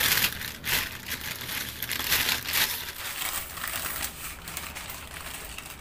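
Thin plastic mailer bag crinkling in irregular bursts as it is handled and the package is slid out of it, loudest in the first few seconds and quieter after about three seconds.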